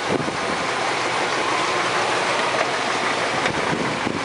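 5.7-litre gasoline V8 of a 1998 Chevy P30 step van running steadily at idle, heard at the open engine compartment.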